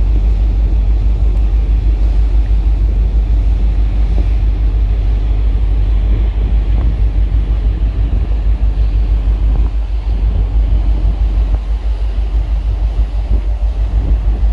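Loud, steady low engine rumble with a rapid pulsing throb.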